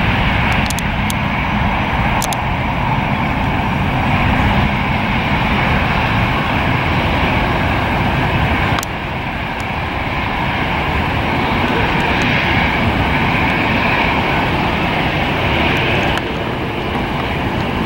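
Jet airliner engines running loud and steady, with wind buffeting the microphone. The sound drops suddenly about halfway through and again near the end.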